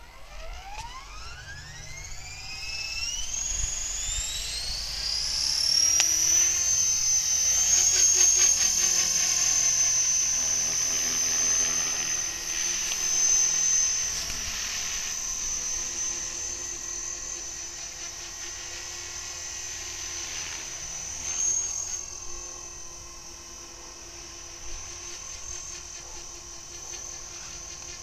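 Radio-controlled model helicopter spooling up from the pad: a whine rising in pitch over about six seconds, then holding a steady high whine as it flies, growing louder and softer as it moves about.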